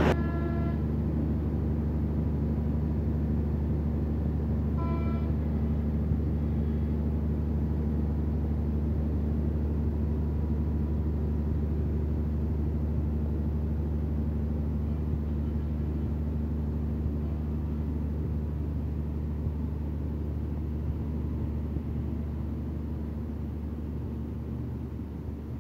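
Diesel engine of a standing passenger train idling with a steady low hum, with two brief high-pitched toots, one at the very start and one about five seconds in.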